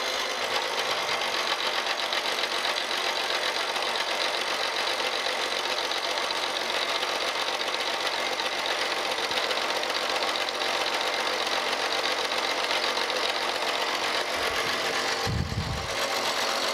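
Vertical mill's face mill taking a dry cut across the 45-degree dovetail face of a cast iron straight edge casting: a steady, dense cutting noise with a fast ticking texture, which changes about 15 seconds in.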